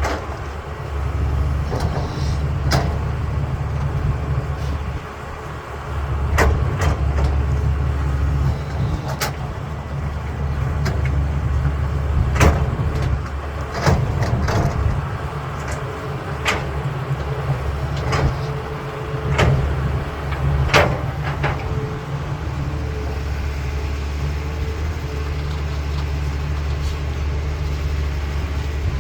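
CAT 320B excavator's diesel engine running steadily under working load, its level rising and falling, with a dozen or so sharp clanks of rock against steel scattered through.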